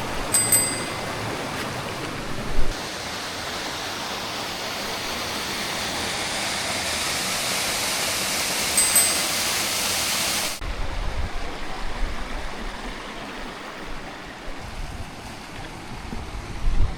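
Mountain stream rushing, a steady hiss of water that grows louder and then cuts off abruptly about ten seconds in. After the cut comes a quieter stretch with wind buffeting the microphone. A brief high ringing tone sounds twice, near the start and just before the cut.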